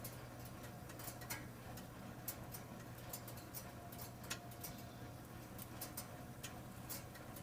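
Brand-new KitchenAid Architect II single wall oven making an irregular ticking, sharp clicks at uneven spacing several times a second, over a steady low hum. This is the abnormal noise the owner calls awful on a new oven.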